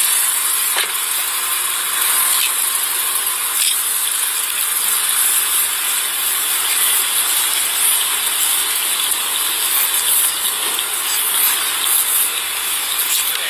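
Police body-camera audio: a loud, steady hiss with scratchy rustling and faint scattered clicks as the wearer moves.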